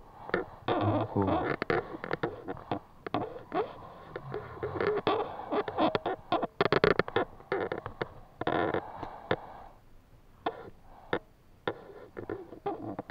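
A wet mesh fish trap being handled and shaken: an irregular run of rustles, taps and small splashes as small stream fish are worked out of the net.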